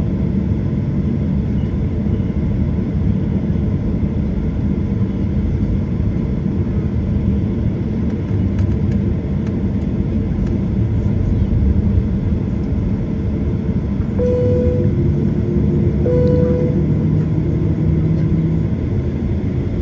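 Steady low rumble of a Boeing 737-800's engines and air conditioning heard inside the passenger cabin before takeoff. Two short, equal beeps come about two seconds apart near the end.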